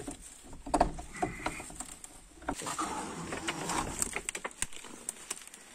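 A steel pry bar forcing the padlocked hasp of an old wooden door: sharp knocks, a short squeak about a second in, then wood scraping as the door is worked open, followed by a string of small clicks and steps.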